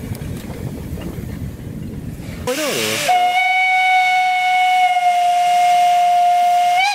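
Low rumble of a narrow-gauge train rolling past, then a steam locomotive's whistle wavers in pitch as it opens and holds one long steady blast of about four seconds, lifting slightly in pitch as it ends.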